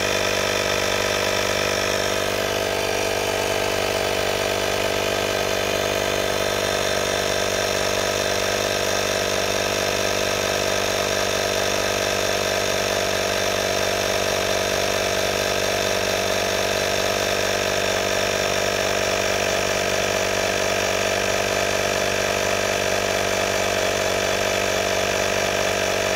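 AstroAI A220B 12 V portable piston compressor running steadily under load, pumping up a car tire with a constant motor hum. It cuts off abruptly at the very end as the tire reaches the set pressure of about 33 psi.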